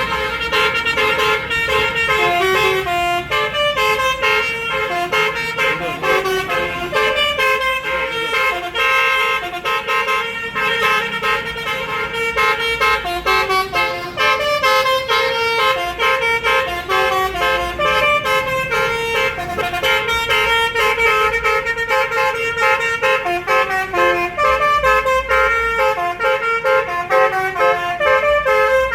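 A tour bus's telolet basuri horn playing a continuous melody, its notes stepping up and down in pitch without a break.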